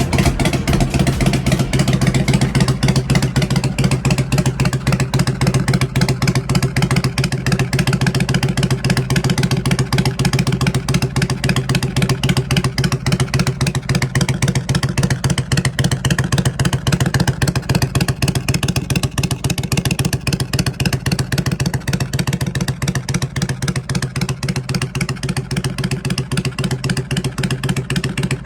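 Kawasaki Vulcan 400 Drifter's V-twin engine idling steadily, with a loud, even exhaust beat that is not revved.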